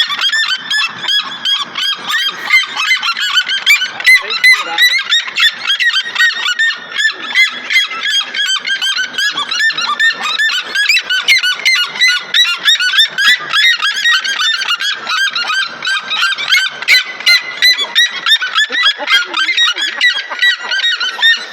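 Red-legged seriemas calling: a loud, rapid, continuous series of high yelping notes, several a second and overlapping as the birds call together.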